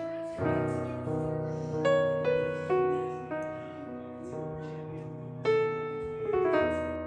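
Background piano music: a slow run of struck notes and chords, each fading out.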